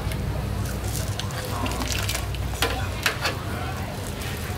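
Food-stall cooking sounds: a steady hiss over a low hum, with several sharp clinks and scrapes of utensils.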